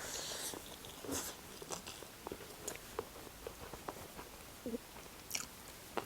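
Close-miked chewing of a mouthful of food, with irregular small crunches and wet mouth clicks.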